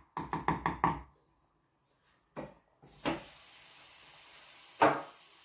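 Water poured into a cooking pot in a quick run of gurgles. A steady hiss sets in about three seconds in, and there is one sharp knock near the end.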